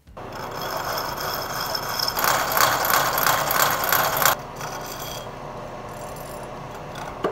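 A hole saw in a milling machine spindle cutting a miter into a 4130 chromoly steel bicycle frame tube, a steady gritty cutting noise that grows louder in the middle. A little over four seconds in, the cutting noise stops abruptly and only the spindle keeps running steadily, as the cut finishes.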